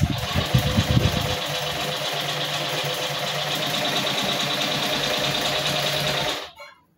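Sewing machine head driven by its electric motor, running steadily as it stitches a test seam on scrap fabric, then stopping suddenly about six and a half seconds in.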